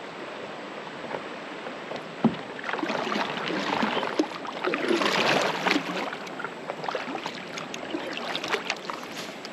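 Kayak paddle strokes dipping and splashing in calm creek water, loudest in the middle, with one sharp knock about two seconds in and light drips and ticks toward the end.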